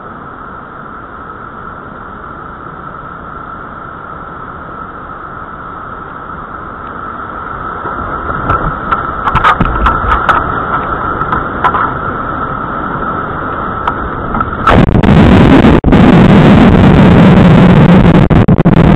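River water rushing past a whitewater kayak, growing louder from about eight seconds in as the boat nears the drop, with a steady high tone underneath. About fifteen seconds in it jumps suddenly to a very loud, distorted wash of whitewater as the kayak runs the falls and the camera is doused.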